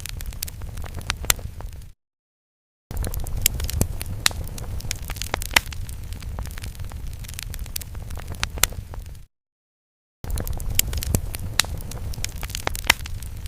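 Fire sound effect: a low rumble with dense crackling and sharp pops, as of burning flames. It cuts to total silence twice for about a second, once about two seconds in and again around nine seconds, where the effect loops.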